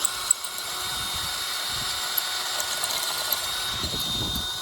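Electric drill running steadily at a constant pitch, drilling out the differential bolt hole with the kit's bit so it can be tapped for a 14 mm diff bolt.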